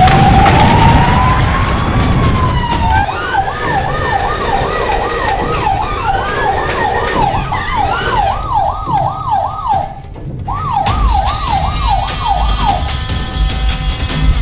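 Electronic toy emergency-vehicle siren: one slow wail rising and falling, then a fast yelp warbling about twice a second, which breaks off briefly and stops near the end.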